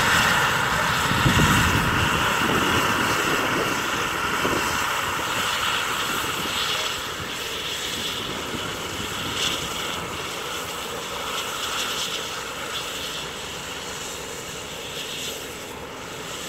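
Radio-controlled scale model helicopter hovering low, its motor and rotor making a steady high-pitched whine that grows gradually quieter.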